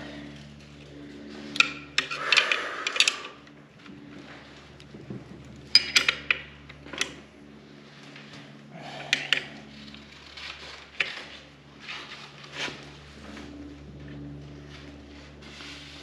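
Steel wrench clinking and scraping on the nuts and bolts of a tractor clutch assembly as jam nuts are worked loose by hand, a string of irregular sharp metal clicks and knocks.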